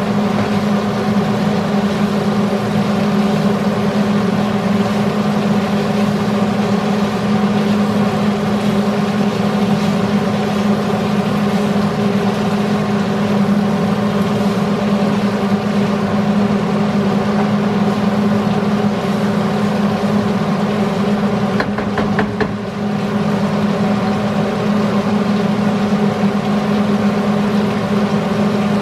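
Range hood fan running with a steady hum, over pork belly frying in a wok as a wooden spatula stirs it. A short clatter of the spatula against the pan about three-quarters of the way through.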